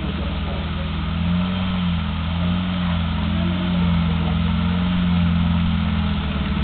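Off-road vehicle's engine running at low, steady revs as it crawls over rocks, its note rising and falling slightly with the throttle.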